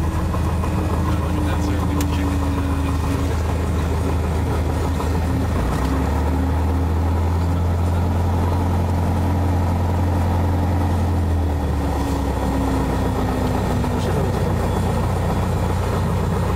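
Piper PA-28-181 Archer's four-cylinder Lycoming engine and propeller droning steadily, heard from inside the cabin; the drone shifts in pitch about six seconds in and again near twelve seconds.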